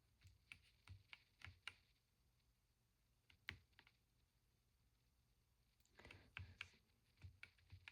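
Faint key presses on a low-profile mechanical keyboard: a few scattered clicks in the first two seconds, a single one about three and a half seconds in, and a quick run of presses near the end.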